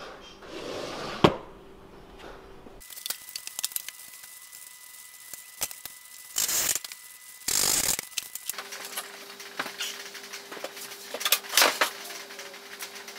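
Workshop handling sounds: a sharp click about a second in, then two short loud noisy bursts around the middle, and scattered light clicks and knocks over a faint steady hum.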